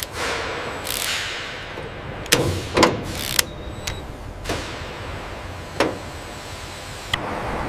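Factory work noise: a series of about seven sharp clanks and short hissing bursts at irregular intervals over a steady low hum.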